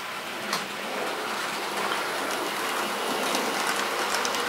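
TT-scale model class 58 steam locomotive hauling a freight train along the layout: a steady rattling hiss of small metal wheels running on the rails, with a few faint clicks, slowly growing louder as the train draws near.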